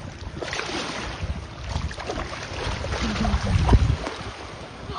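Wind rumbling on the microphone over shallow water lapping at the shoreline, the gusts strongest about three and a half seconds in.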